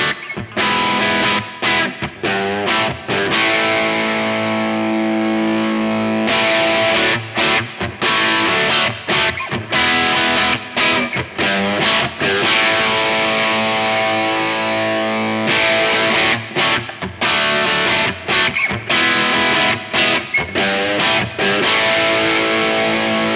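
Electric guitar played through a NUX 63 Diamond, a Vox AC30-style overdrive pedal, with the gain turned well up for quite aggressive distortion. The player strums chords with many short, choppy stops and a few held chords, and the last chord rings out and fades near the end.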